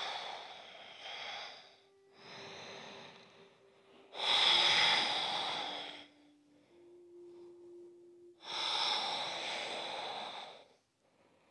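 Slow, deep human breathing close to a worn microphone: four long rushes of air, each lasting about two seconds, a couple of seconds apart.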